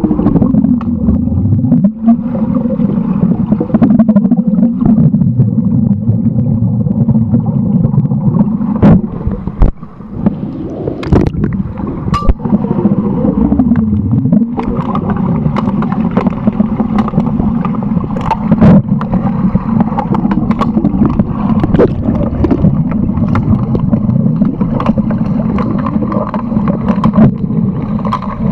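Underwater sound of a pool during an underwater hockey game, heard from a submerged camera: a dense, steady low rumble with gurgling and wavering tones, and many scattered sharp clicks and knocks.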